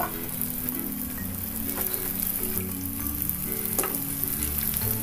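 Rice-flour dough pieces sizzling as they fry in hot sunflower oil in a pan, a steady hiss with a few faint ticks as more pieces are dropped in.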